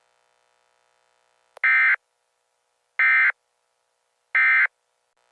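Emergency Alert System end-of-message data bursts closing the alert transmission: three short, identical digital squawks about a second and a half apart.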